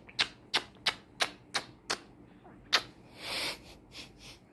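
Alexandrine parakeet tapping and pecking with its beak: a steady run of sharp clicks about three a second, a short rasp a little after three seconds in, then a few more clicks.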